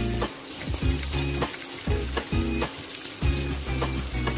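Beaten eggs sizzling in hot oil in a wok, with a wooden spatula scraping and stirring them in short strokes. Background music with a low bass line plays over it.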